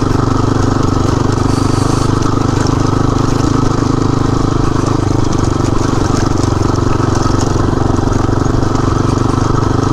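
Motorcycle engine running at a steady, unchanging pitch, with an even drone throughout.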